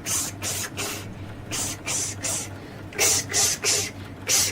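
A voice repeating the hissing "ks" sound of the letter X in quick sets of three: "ks-ks-ks".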